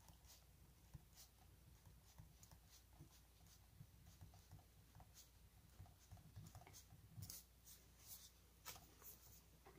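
Very faint scratching and light taps of a ballpoint pen writing numbers on lined notebook paper, close to near silence.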